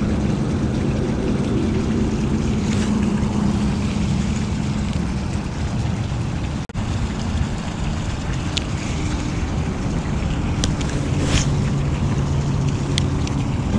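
Steady wind rumble on a body-worn microphone, with clothing rustle and a few sharp clicks in the second half as a spinning rod and reel is handled.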